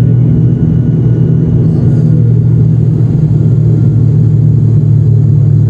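Airliner cabin noise during the climb after takeoff: the engines and rushing air make a loud, steady low rumble inside the passenger cabin, with a faint thin whine above it.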